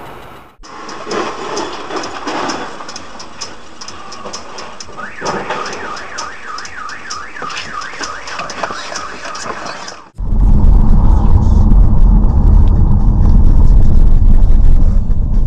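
Warbling electronic alarm tone sweeping up and down over and over, with regular high ticks. After a sudden cut about ten seconds in, a much louder low rumble of a moving vehicle, heard from inside the car, takes over.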